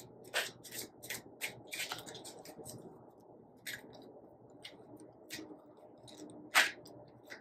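A deck of cards being shuffled by hand: quick crisp flicks of cards, about four a second, for the first three seconds, then a few scattered taps and slides of cards, with one sharper snap late on.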